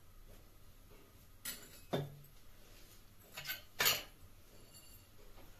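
Kitchen utensils clinking lightly against metal: four short clinks in two pairs, the first pair about one and a half seconds in and the second about three and a half seconds in, the last the loudest.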